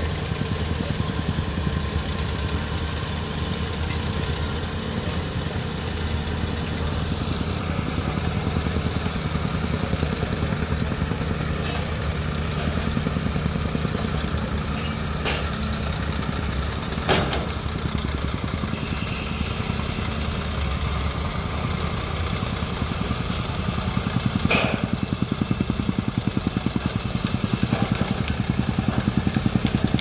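Diesel construction machinery running steadily, with a couple of sharp knocks. In the last part a fast, even pulsing grows louder: a tamping rammer pounding soil.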